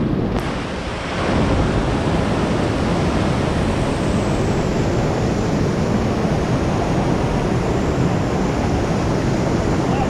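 Waterfall rushing close by: a steady, loud wash of falling water. It is a little softer for the first second, then holds level.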